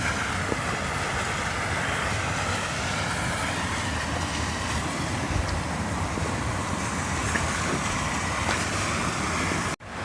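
Steady rushing noise with a low rumble beneath it, even throughout with no distinct events.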